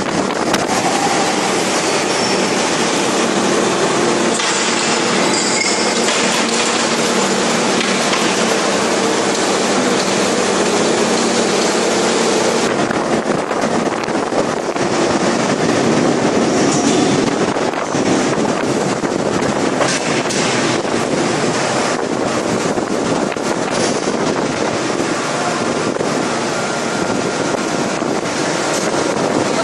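Steady, loud industrial din of a 5000-ton hydraulic forging press and its manipulator working a red-hot steel forging, with a few faint high squeals at times and no distinct blows.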